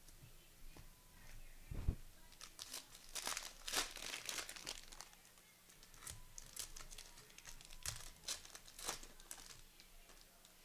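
Plastic wrapper of a basketball trading-card pack being torn open and crinkled by hand, a run of short crackles that is densest a few seconds in, after a soft thump about two seconds in.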